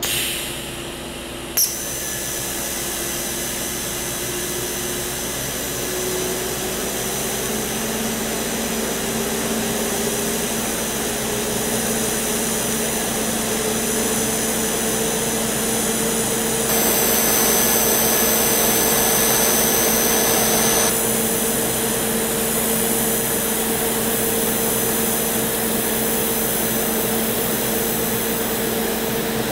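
TIG welding arc on steel: a steady hiss and buzz that starts suddenly, with a sharp click about a second and a half in. A faint tone underneath slowly rises in pitch over the first ten seconds or so.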